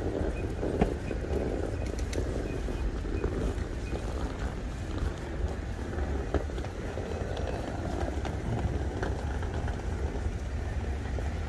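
City-street ambience: traffic passing and people talking in the background over a steady low rumble, with scattered clicks and a sharp knock about a second in. A short high beep repeats about three times a second for the first three seconds or so.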